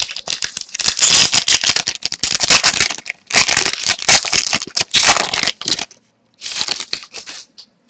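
A hockey trading-card pack's wrapper being torn open and crinkled, in one long stretch of rapid crackling and a shorter one near the end.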